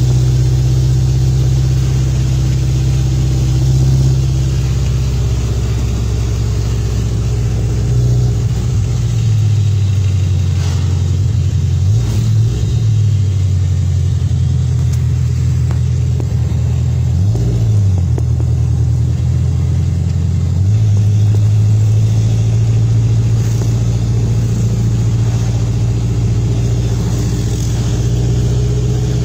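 Toyota 4K four-cylinder engine of an owner-type jeep running under way on the road, heard from on board. Its note is steady, then drops and wavers several times in the middle before settling again.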